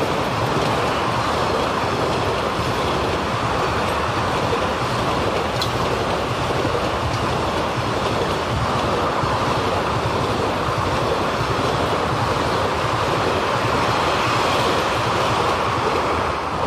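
Coaches of an Indian Railways passenger express passing at speed: a steady rumble and rattle of wheels on the rails. The sound falls away right at the end as the last coach goes by.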